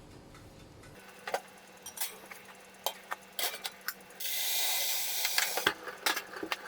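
Scattered sharp clicks and knocks of hard kitchen things being handled, with a steady hiss lasting about a second and a half from about four seconds in.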